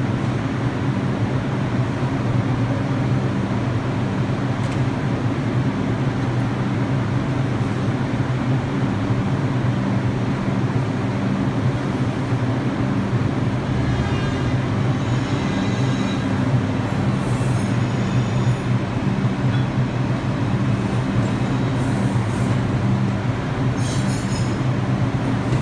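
Subway train at a terminal platform giving off a steady, unbroken hum, with faint higher-pitched tones about halfway through.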